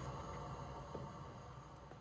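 Quiet background music fading out, with a sharp click at the start.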